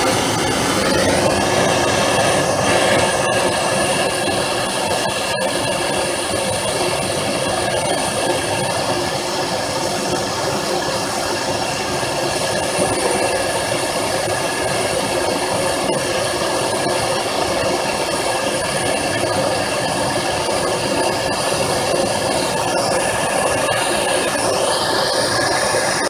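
MAP gas torch burning with a steady, loud hiss as its flame heats a rusted rotor locking screw so the metal expands and lets go of the seized screw.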